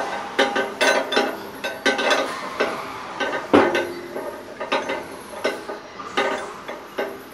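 Irregular metallic clinks and knocks, each with a short ring, about two or three a second, the loudest about three and a half seconds in and growing fainter toward the end: steel lifting chains, shackles and hooks knocking against metal as a new exhaust manifold hung from them is eased into place on a TEP70 locomotive's diesel engine.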